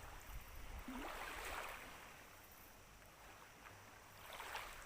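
Small waves lapping at the shore, a faint wash of water that swells twice, about a second in and again near the end.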